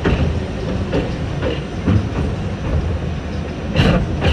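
R68 subway car running at speed. The wheels give a steady low rumble and clack sharply over rail joints several times, with the loudest two clacks near the end.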